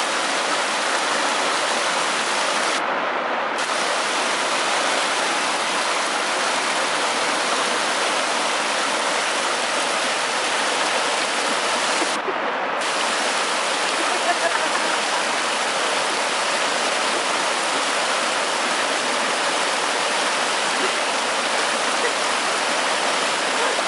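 Steady rush of water from waves washing in, an even hiss without a pause. Twice the hiss briefly goes dull.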